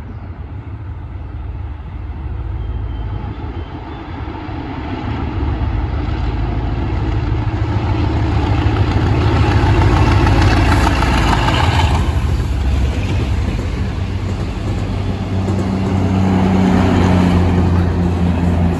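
Diesel locomotive moving past, a low rumble and clatter growing louder over the first ten seconds. From about fifteen seconds in, a steady low engine drone comes through.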